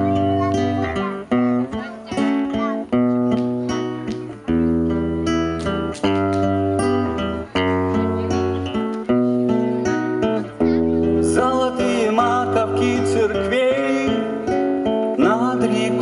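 Acoustic guitar strummed in slow chords through a stage PA, a song's introduction. A man's voice comes in singing about eleven seconds in.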